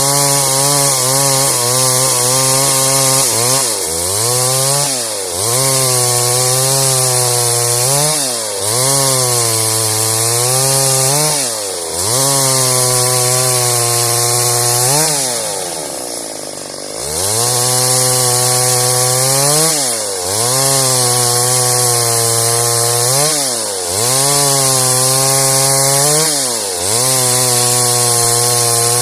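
A Stihl MS 382 two-stroke chainsaw cutting through wood at high revs. The engine pitch dips and climbs back every three to four seconds, and drops once to near idle about halfway through before revving up again.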